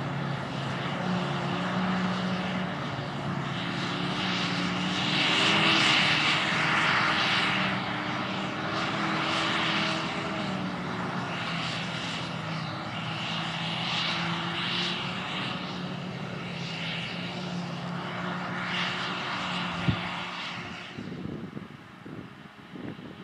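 A Claas Jaguar 870 self-propelled forage harvester and the tractor hauling its trailer alongside, working a field of grass silage: a steady diesel engine drone under a rushing hiss that swells and eases several times. A single click just before the end, then the sound fades away.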